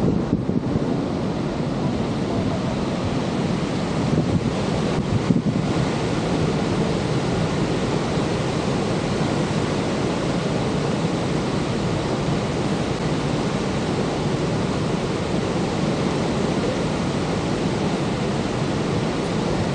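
Steady rush of falling water from Niagara's Horseshoe Falls, with wind buffeting the microphone and a few louder gusts about four to five seconds in.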